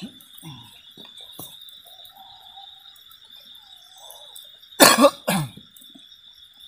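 A person coughs twice in quick succession, over the steady high chirring of crickets.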